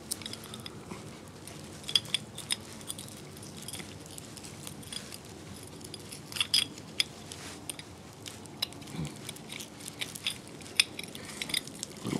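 Greasy steel parts of a CV joint clicking and clinking irregularly as the inner race (star) is worked out of the ball cage by hand.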